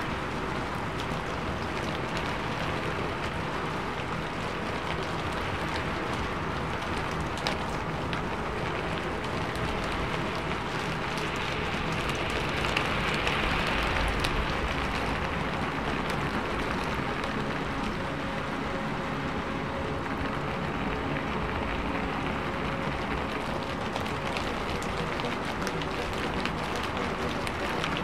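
Steady rain falling, an even dense patter that swells a little about halfway through.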